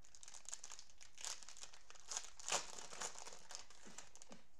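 Plastic cellophane wrapper of a 2020 Donruss Optic football cello pack crinkling and tearing as it is opened by hand, with irregular crackles and a few louder crinkles around the middle.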